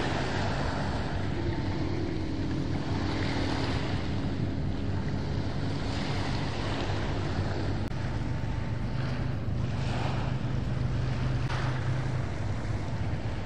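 A rigid inflatable boat's engine runs steadily, a low hum that strengthens a little past the middle as the boat gets under way. Wind noise on the microphone and water sound lie over it.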